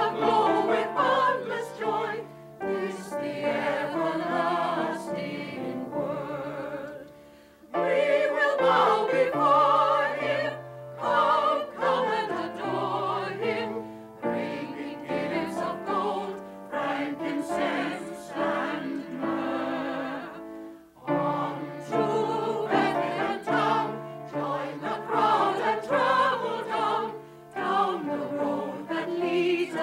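A group of men's and women's voices singing together in harmony, in long held phrases with short breaks about seven and twenty-one seconds in.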